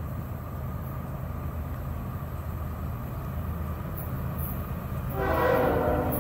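Air horn of an approaching Florida East Coast Railway diesel freight locomotive, sounding one blast of about a second near the end, over a steady low rumble.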